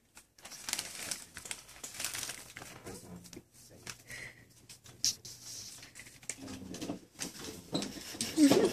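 Crinkling of the plastic sour straps packet being handled, mixed with wet chewing and crackling mouth noises from an overstuffed mouthful of sour straps candy.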